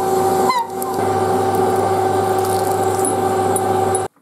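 Metal lathe running with a steady gear whine while a drill bit in a tailstock drill chuck bores into a spinning metal workpiece. A short rising squeak comes about half a second in, and the sound cuts off abruptly near the end.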